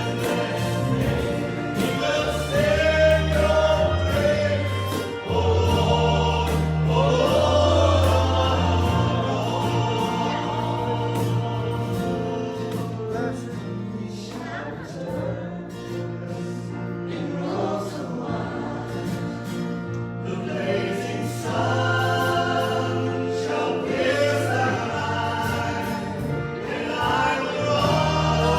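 Church worship music: voices singing a hymn together over a band, with bass notes and a steady beat.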